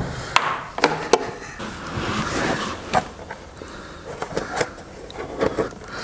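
Handling noise from a stripped flexible electrical cable being fed through a grommet into a wall-mounted starter box: scraping and rustling with several sharp knocks of the cable and hands against the box.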